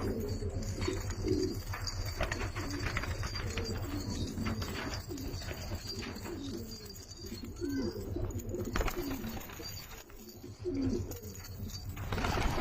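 Domestic pigeons cooing, several low calls repeating over a steady low hum.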